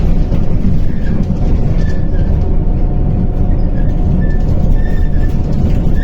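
Inside a MAZ-105 articulated city bus under way: loud, steady low engine and road rumble with a constant whine and brief high squeaks from the body.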